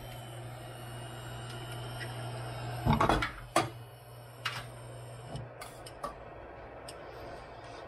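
Induction cooker running at 800 W with a steady low hum. About three seconds in comes a loud cluster of knocks and clicks as a raw egg is opened into the nonstick frying pan, followed by a few lighter clicks.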